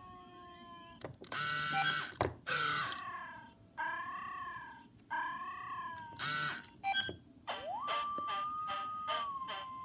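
Sega i-Dog robot dog toy playing its electronic sick-mood sounds: a few loud synthesized bursts, then three short chirps that rise and fall in pitch. About seven seconds in a click is followed by a held tone over a fast, even pulsing beep pattern.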